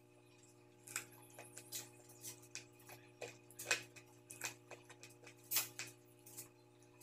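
Eating sounds: irregular wet clicks and smacks of a person chewing fried fish eaten by hand, a few a second, over a steady low hum.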